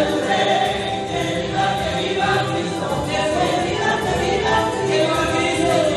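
A crowd of worshippers singing a hymn together, many voices at once.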